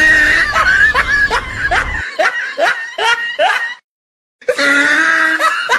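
High-pitched laughter in quick, rising 'ha' bursts, about three a second. It cuts off abruptly near four seconds, and after a brief silence the laughter starts again.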